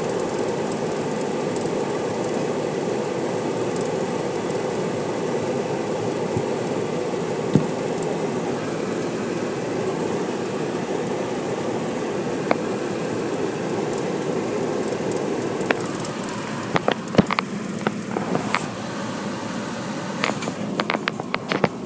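Steady rushing noise of car-wash tunnel machinery heard from inside a car. The noise drops away about three-quarters of the way through as the car leaves the tunnel, and scattered sharp clicks and taps follow.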